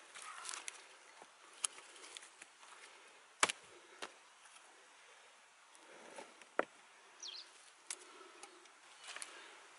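Gloved hands working among dry sticks and moss: scattered crackles and snaps of dry twigs with soft rustling, the sharpest snap about three and a half seconds in. A short high chirp near seven seconds.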